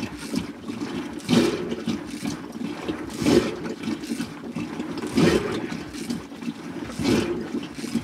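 Traditional rope-driven butter churn: a wooden churning stick twirled back and forth in a metal pot, sloshing the liquid inside in regular surges about every two seconds.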